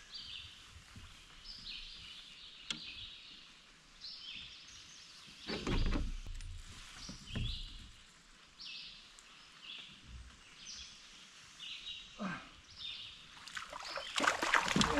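A songbird singing short, repeated high phrases over and over, with a few splashes and bumps of a hooked smallmouth bass being fought beside a kayak, the loudest about six seconds in and again near the end.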